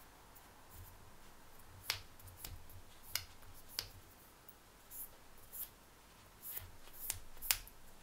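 Small, sharp clicks and ticks, about nine of them at irregular intervals, from small items being handled by hand while a pendant necklace is cleaned.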